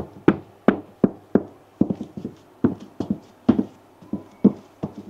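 Dark leather penny loafers stepping in place on a hard pedestal top: crisp heel and sole clacks about three a second, often landing in quick pairs.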